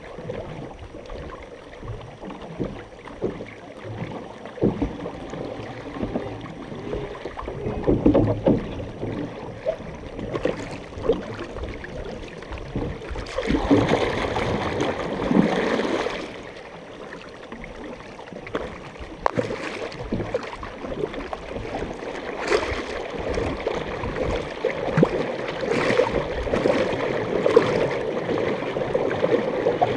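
Canoe paddles dipping and pulling through lake water in repeated strokes, with splashing and water washing along the hull. A louder rush lasts a few seconds about halfway through.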